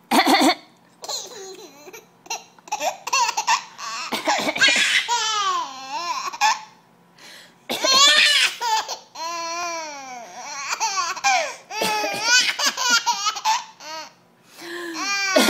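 A 10-month-old baby laughing in repeated high-pitched bursts, set off by an adult's fake coughs in between.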